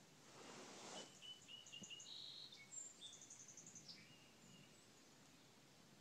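Faint songbird chirps outdoors: a run of short high notes, a short held whistle and a quick trill. A brief rush of noise comes in the first second.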